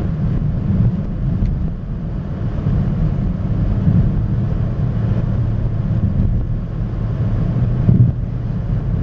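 Steady low rumble of a car driving on a road, heard from inside the cabin: engine and tyre noise, with a slight bump about eight seconds in.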